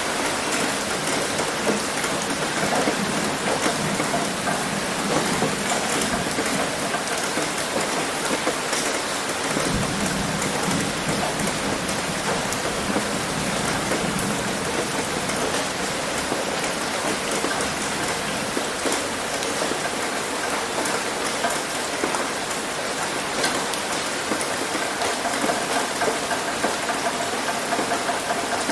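Heavy rain pouring steadily onto a roof, a dense patter of many drops hitting close together.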